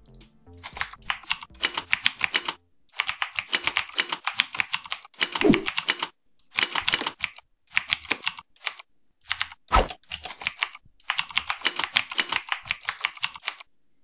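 Keyboard typing with the Mechvibes software playing a simulated mechanical-keyboard click for each keystroke. The clicks come in quick runs of several a second, broken by short pauses, with one deeper thud about halfway through.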